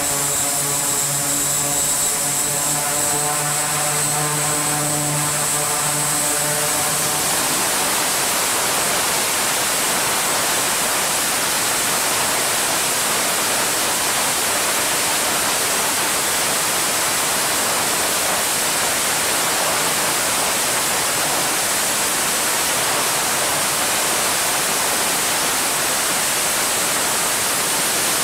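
E-2 Hawkeye's twin turboprop engines running steadily, propellers turning. A humming propeller tone fades out over the first six or seven seconds, leaving a steady rush of engine noise with a thin high whine above it.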